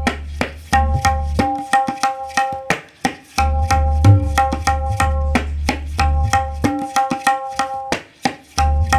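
Tabla being played: a 5.5-inch neem-wood dayan tuned to C sharp rings on its pitch over a quick run of strokes, while a brass bayan gives deep, booming bass strokes. The playing breaks off briefly about three seconds in and again near the end.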